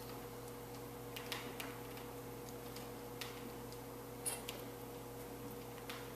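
Faint, irregular sticky clicks of chocolate syrup on skin being worked by hand, a few scattered ticks over a steady low hum.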